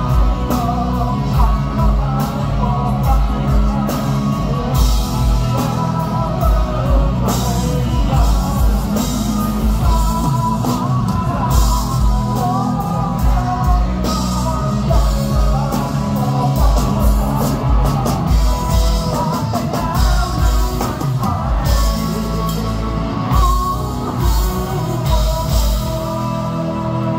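Live rock band playing loud amplified music: electric guitars, bass guitar and a drum kit keeping a steady beat, with a man singing the lead vocal.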